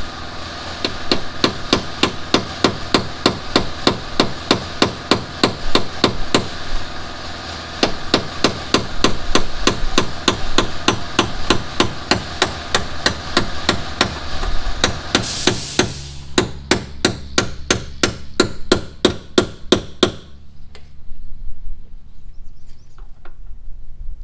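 Rapid, evenly spaced metal-on-metal hammering, about four blows a second, driving a seized hinge pin out of a Chevy Tahoe's rear barn-door hinge. About fifteen seconds in there is a short hiss, the blows come a little quicker, and the hammering stops about twenty seconds in.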